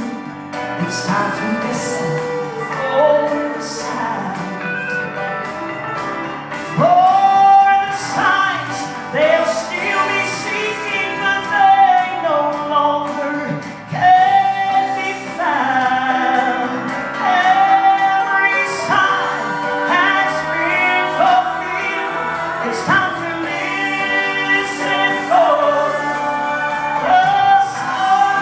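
Live gospel song, a woman singing sustained, gliding notes over instrumental accompaniment with a steady beat.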